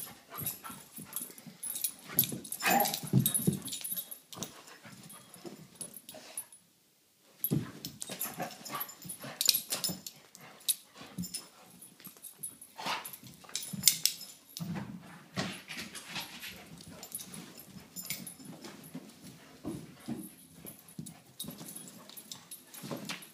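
Two dogs play-fighting: irregular bursts of dog vocalising mixed with scuffling and sharp knocks as they wrestle, broken by a brief silent gap about seven seconds in.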